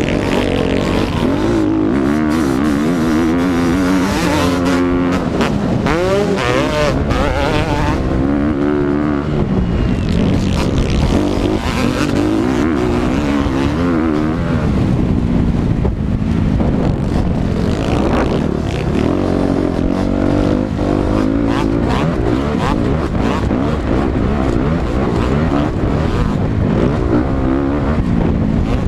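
Motocross dirt bike engines racing, revving up and dropping off again and again as the riders work the throttle through the track, several bikes overlapping.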